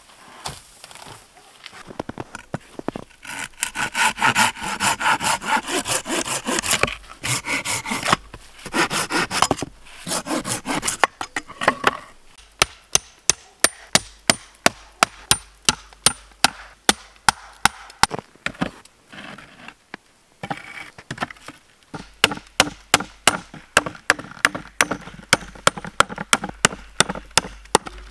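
Hand saw cutting through wooden boards in quick back-and-forth strokes. Several runs of sawing are broken by short pauses, and the later strokes come as sharp, even rasps about two or three a second.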